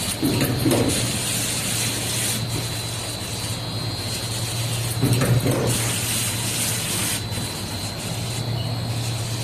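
Flexible drain hose making machine running: a steady low hum with a thin high whine over a hiss, swelling briefly twice.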